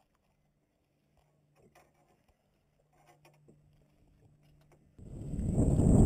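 Near silence with a few faint ticks, then about five seconds in a loud, fluctuating rumble starts suddenly: wind buffeting the camera's microphone.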